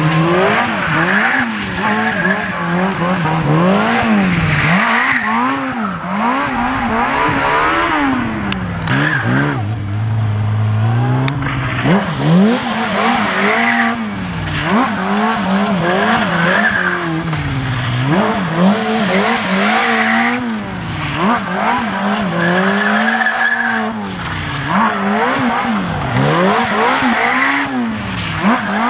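Sport bike engine revving up and down again and again, about every one to two seconds, while the bike circles in donuts, the rear tyre squealing on the asphalt at times.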